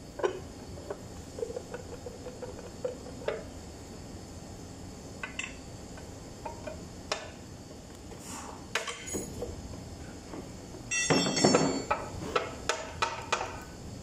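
Metal clinks and knocks as the cast aluminium timing gear cover is worked loose from a dismantled Toyota 14Z diesel engine. A louder metallic clatter about eleven seconds in, as the cover comes free of the gear case, is followed by a few more knocks.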